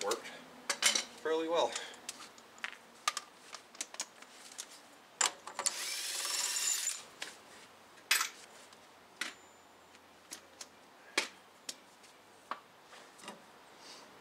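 Cordless impact wrench running for about a second and a half, spinning the front axle nut off the wheel hub. Sharp clinks and knocks of sockets and tools being handled come before and after it.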